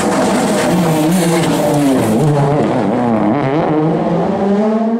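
Rally car engine at high revs as the car drives hard past on a special stage, its pitch rising and dropping repeatedly through gear changes and lifts.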